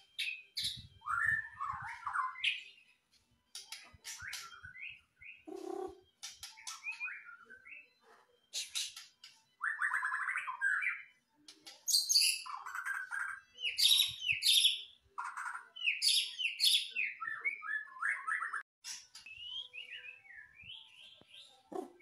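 White-rumped shama (murai batu) singing vigorously: a varied run of loud whistled notes, quick slurred phrases and fast rattling trills, delivered in bursts with short pauses between them.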